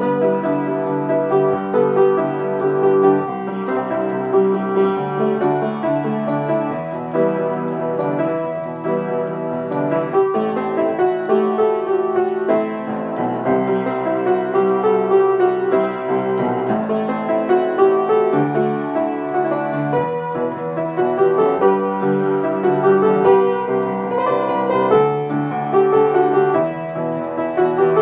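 Upright piano played with both hands in an arrangement of a heavy metal song: a steady, unbroken stream of melody and chords.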